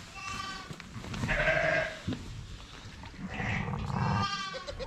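Sheep bleating: three drawn-out bleats, the loudest about a second and a half in, with low rustling of straw and handling underneath.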